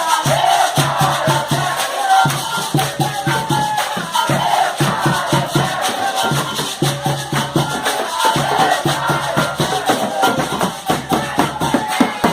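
Afoxé music played live: shakers keep a dense, even rhythm over pulsing hand drums, with voices singing.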